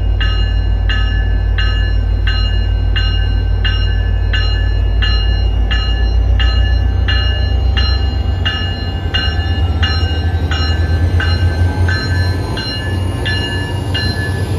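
MBTA commuter rail diesel locomotive's bell ringing steadily, about two and a half strikes a second, over the low rumble of its diesel engine as the train pulls into the platform and passes.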